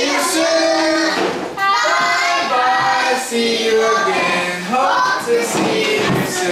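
A goodbye song sung in children's voices over music, with long held notes.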